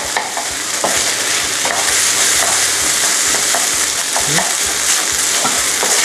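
Fried rice with diced carrot, corn, peas and raisins sizzling in a non-stick frying pan, stirred and turned with a wooden spatula. A steady sizzle with the occasional scrape of the spatula.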